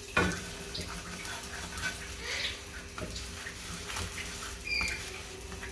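Slotted metal spatula clicking and scraping against a tawa (flat griddle) as burgers are lifted and pressed, with a sharp click just after the start. A few short high chirps come near the end.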